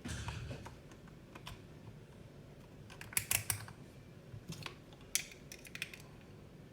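Small plastic clicks and taps from handling a multimeter and its test leads while one set of leads is swapped for another. The clicks come one at a time, with a quick cluster of them about three seconds in.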